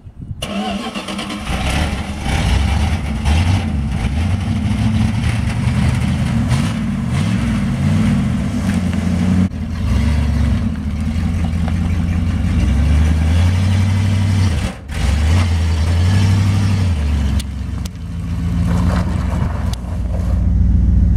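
1980 Dodge D150 pickup's small-block V8 running as the truck drives off, its note rising and falling several times as it is revved.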